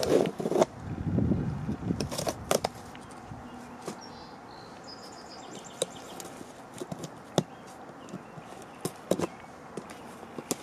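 A pin picking and scratching at packing tape on a cardboard mailer box, with scattered sharp clicks and the rustle of cardboard and paper label. The rustling and handling are loudest in the first couple of seconds.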